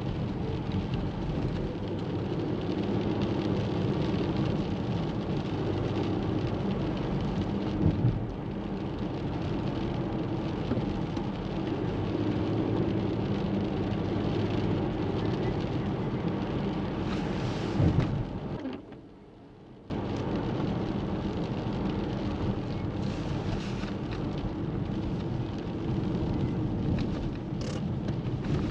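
Steady rain with a low rumble of thunder underneath and a couple of brief knocks. The sound drops away for about a second roughly two-thirds of the way through, then the rain resumes.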